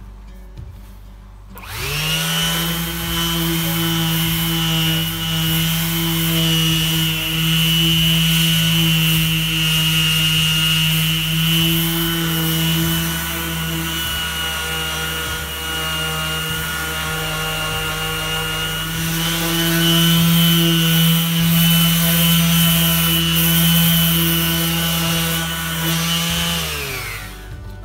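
Electric orbital sander spinning up with a rising whine about two seconds in, then running with a steady hum as it sands rust-treated steel back to bare metal. It winds down near the end.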